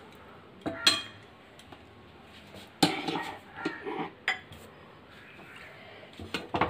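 A metal spatula knocking and scraping against an aluminium kadai as thick milk with malpua is stirred, in a few separate clanks with a cluster about three seconds in. Near the end, metal tongs clink as they grip the pan's rim to lift it off the stove.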